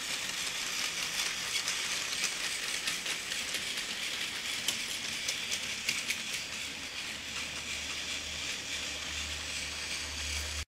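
Battery-powered Tomy Plarail toy Thomas train running on plastic track: a steady whirring motor with fine rapid clicking from the wheels over the track, a little quieter in the second half.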